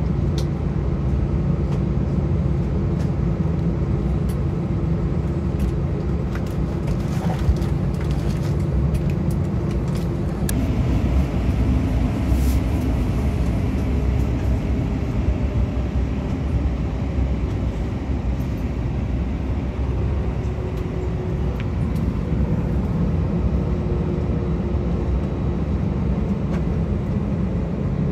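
Cabin noise inside an Airbus A319 taxiing on the ground: a steady low rumble of the engines at taxi power with a constant droning hum. A few light clicks and rustles come partway through.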